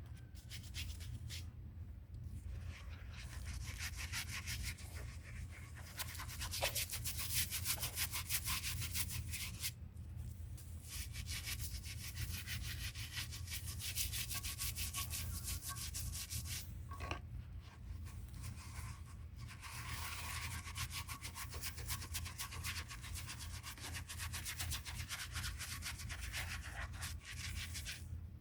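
Stiff brush scrubbing old concrete in rapid back-and-forth strokes, with a few brief pauses, to clear off dirt and grime before sanding.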